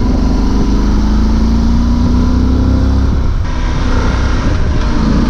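Yamaha Super Ténéré's parallel-twin engine pulling under acceleration with a steady rising pitch; about three and a half seconds in the pitch breaks off and comes back lower, then climbs again. Heavy wind rumble on the microphone runs underneath.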